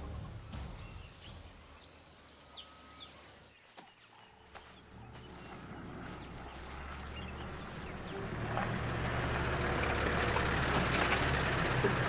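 An open safari vehicle drives over dry grass and dirt: a steady low engine hum, then the noise of the drive grows louder over the last few seconds. In the first few seconds there are high, short chirps.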